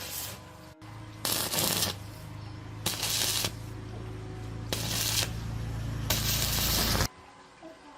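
A machine hums steadily, starting about a second in and cutting off suddenly near the end, with four loud bursts of hissing over it.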